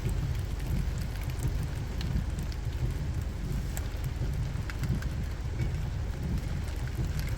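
Wind buffeting the microphone in a low, gusting rumble over steady falling rain, with scattered short ticks of drops.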